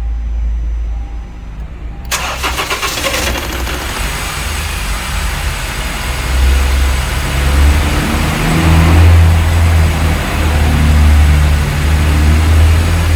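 Honda Civic 2.0 four-cylinder engine cranked by a sluggish starter motor, catching about two seconds in and then running, its low rumble growing stronger from about six seconds in. The starter drags even on a fully charged battery, a sign of a heavy, dry starter motor in need of cleaning.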